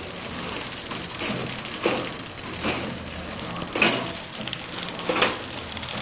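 Automatic film-wrap packing machine running: a steady motor hum with a sharp mechanical clack about once every second or so as it works through the packs.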